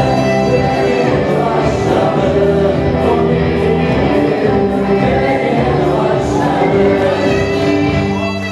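Live wedding dance band playing an upbeat song with singing, bass guitar and steady beat.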